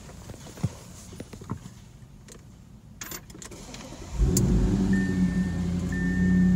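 Audi RS 7 performance's twin-turbo 4.0-litre V8 starting about four seconds in, heard from inside the cabin: a sudden loud flare through the Akrapovic titanium exhaust that then runs on at a steady idle. Soon after, a dashboard warning chime begins beeping about once a second. Before the start there are a few small clicks and the sound of keys being handled.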